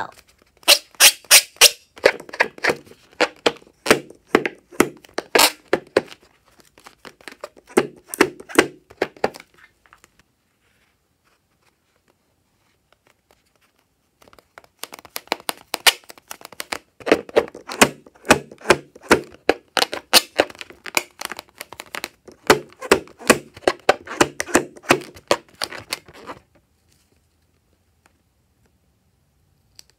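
Rubber balloon being handled by fingers, giving a rapid series of sharp squeaks and taps in two long runs with a pause of about five seconds between them.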